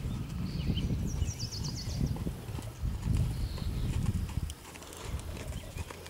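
Hoofbeats of a weanling Quarter Horse colt and a grey horse trotting loose on sand: dull, uneven thuds on the soft footing, which fall quieter about four and a half seconds in. A short run of high chirps sounds between one and two seconds in.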